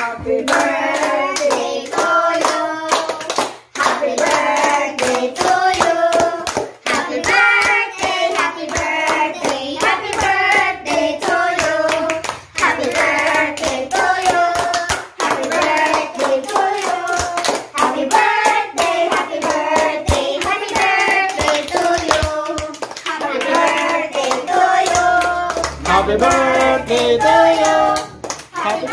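A small group of women and children singing a birthday song together, clapping along throughout.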